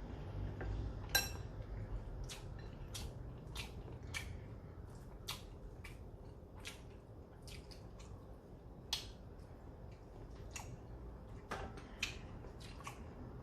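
Eating at the table: chopsticks and spoons click irregularly against dishes, about twenty sharp clicks with the loudest about a second in, over soft chewing.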